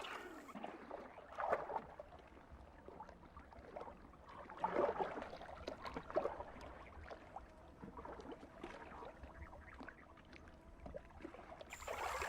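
Water splashing and gurgling in irregular bursts, with small drips and clicks between them.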